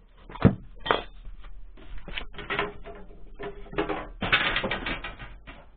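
Handling noise from things being moved about: a sharp thump about half a second in, then a run of clattering knocks and scrapes, busiest near the end.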